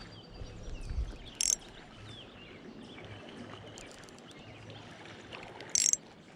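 River water running steadily, with two brief sharp hissing noises about four seconds apart and a few faint high chirps in between.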